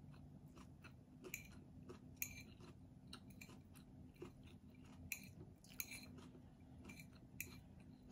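Faint, crisp mouth-close chewing of grated mango, with irregular crunches and a few louder ones scattered through.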